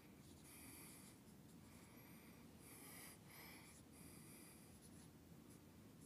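Dry-erase marker squeaking faintly on a whiteboard as letters are written, a run of short strokes with small pauses between them.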